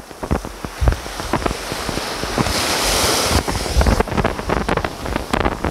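Surf breaking and washing up a sandy beach, with a louder rush of foam near the middle. Wind buffets the microphone throughout.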